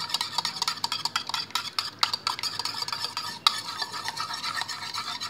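Wire balloon whisk beating two raw eggs in a mixing bowl: quick, uneven clicking and tapping of the wires against the bowl, going on without a break.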